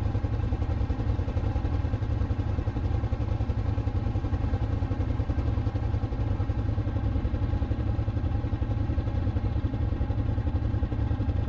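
Quad (ATV) engine running steadily while being ridden, an even, unchanging engine hum.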